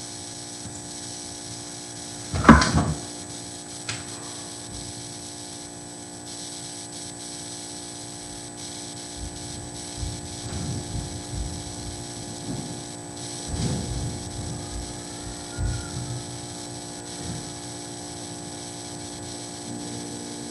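Steady electrical hum of room or recording background, broken by one loud thump about two and a half seconds in and a smaller click soon after. Faint scattered bumps follow in the second half.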